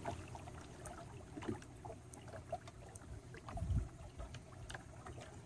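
Small waves lapping and trickling against a kayak's hull, over a low rumble, with a soft thump about two-thirds of the way through.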